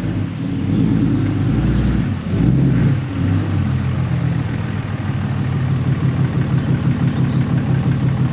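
Diesel pickup truck engine running at low speed as the truck is pulled forward. Its note rises briefly about two seconds in, then settles into a steady, pulsing low run.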